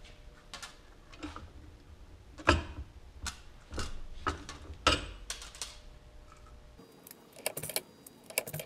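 Arbor press and Dzus fastener hardware clicking and clanking as a stud and grommet are pressed into an aluminium cowling panel, with two louder knocks about two and a half and five seconds in. A few lighter metal clicks follow near the end.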